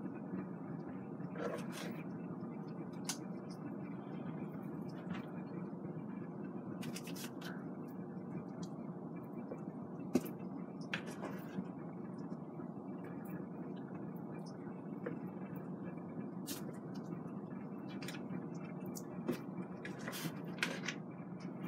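Hands tossing chicken wings in seasoned flour in a bowl: soft, scattered rustles and light taps over a steady low hum.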